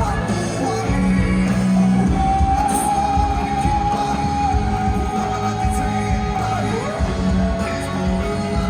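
A live band playing amplified music with singing, with one long held note through the middle.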